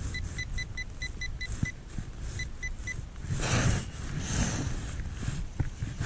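Handheld metal-detecting pinpointer probe beeping rapidly, about five short high beeps a second, then three more after a brief pause, as it is swept through the dug soil. The beeping signals metal close to the probe tip. About three and a half seconds in comes a louder rustling scrape, over a low rumble.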